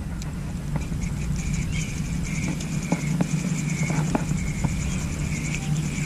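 Spinning reel cranked steadily during a lure retrieve: an even, fast whir with a fine regular ticking and a few light clicks, over a steady low hum.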